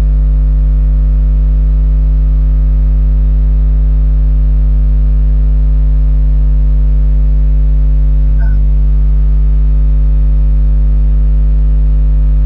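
Loud, steady electrical mains hum with a stack of even overtones, picked up by the recording microphone.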